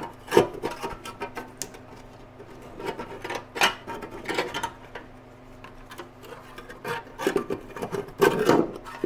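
A sheet-metal spark plug wire channel cover being slid out from under an exhaust header, scraping and clattering in a run of irregular scrapes and knocks.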